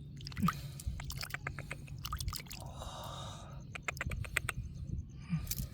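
Runs of quick, sharp clicks and wet dripping sounds over a steady low hum.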